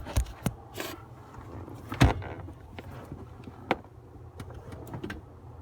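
Hand tools being handled while searching for a 10 mm socket or wrench: scattered clicks and knocks of metal, with one louder knock about two seconds in.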